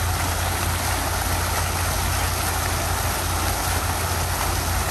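Fountain jets spraying and splashing down into a pool, a steady rush of falling water, with a steady low hum underneath.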